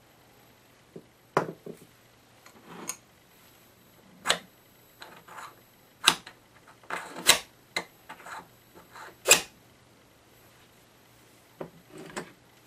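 Irregular metallic clicks and knocks from hands handling the brass compression nut and olive on the end of a copper pipe.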